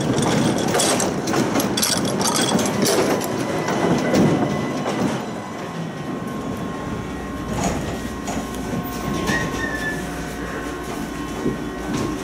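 Tram running on curving track, its wheels clattering and knocking over the rails, with thin squealing tones from the wheels. The clatter eases about halfway through, leaving a lower, steadier running hum.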